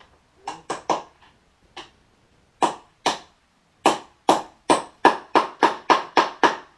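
Hammer striking a scooter part to knock it into place. A few scattered blows come first, then a quick even run of about ten, roughly three a second.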